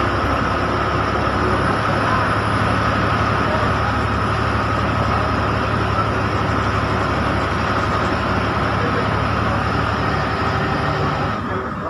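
Interior of a bus driving through heavy rain: the engine runs steadily under a constant wash of rain and wet-road tyre noise, which eases slightly near the end.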